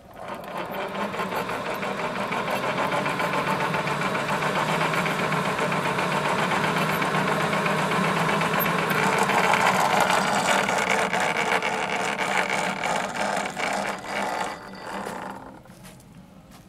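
Small machine running steadily with a fast rattle. It comes up to speed at the start and stops about fifteen seconds in.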